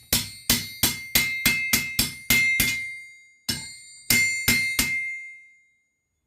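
Hammer blows on a bent steel log splitter leg laid on an anvil to straighten it, about three a second, each with a bright metallic ring. About nine blows, a short pause a little past halfway, then four more.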